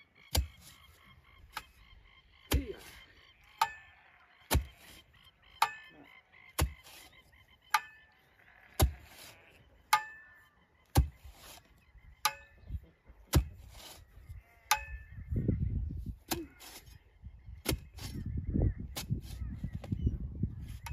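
A metal digging tool driven into hard, rocky ground while digging a tree-planting hole, striking about once a second, some strikes leaving a short metallic ring. From about fifteen seconds in, a rougher scraping noise fills the gaps between strikes.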